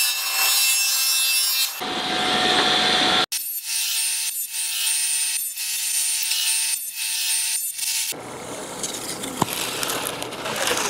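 Table saw running and cutting cast acrylic sheet in a series of short cuts, a steady whine under the rasp of the blade through the plastic, with the sound changing abruptly between cuts. Near the end it is quieter, as protective film is peeled off a cut acrylic piece.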